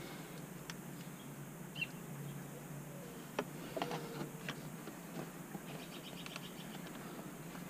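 Faint clicks and rustles of wiring and plastic trim being handled around a car's center console, with a single faint bird chirp about two seconds in.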